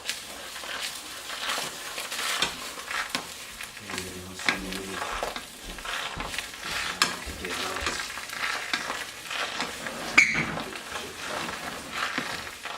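Scrambled eggs sizzling in a hot pot while a spatula stirs and scrapes them in repeated short strokes. A sharp clack comes about ten seconds in.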